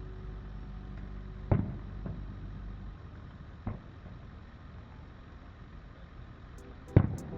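Fireworks shells bursting overhead. There is a loud boom about a second and a half in, a fainter one near four seconds, and another loud boom near the end, each followed by a rumbling echo.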